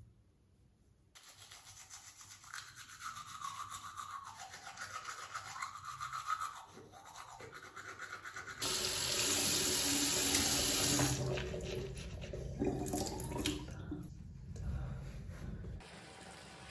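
Toothbrush scrubbing teeth, then a tap running loudly for several seconds. Near the end, after a cut, a bath tap runs steadily into the tub.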